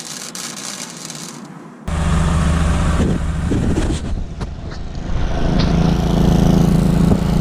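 A steady hiss for about two seconds, then a car engine running steadily with a loud low hum that comes in abruptly.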